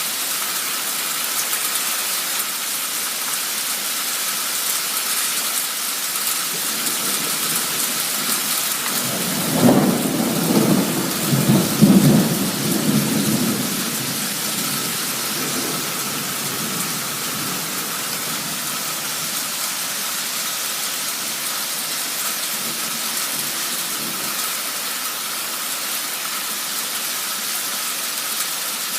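Heavy downpour falling steadily as a dense hiss, with a roll of thunder rumbling through it about a third of the way in for a few seconds, loudest in two swells.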